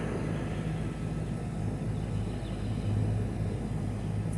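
Steady low mechanical hum, like a motor running nearby, with no sudden sounds.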